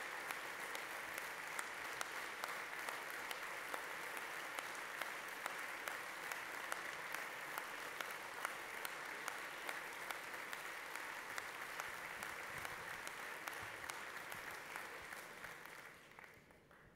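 Sustained applause from a large audience, a dense, steady clatter of many hands clapping, which dies away about sixteen seconds in.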